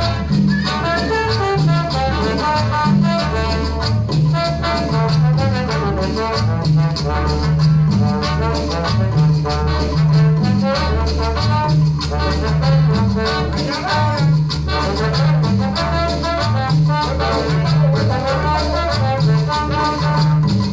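Latin dance music with brass and a steady repeating bass line, played from a vinyl record on a turntable.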